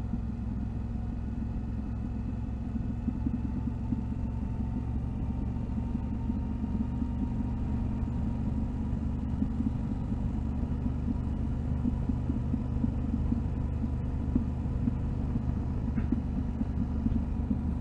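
Yamaha Ténéré 700 motorcycle's parallel-twin engine running steadily at low revs while riding.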